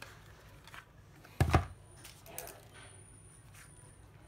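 A plastic Makita battery charger being handled and lifted away, with a few light clicks and one loud knock about a second and a half in.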